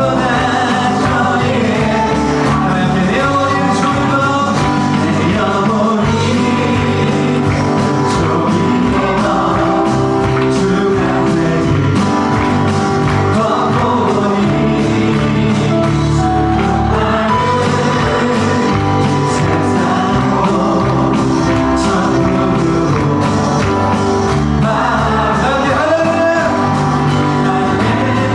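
Worship song: voices singing together over a full band, continuous and steady in loudness.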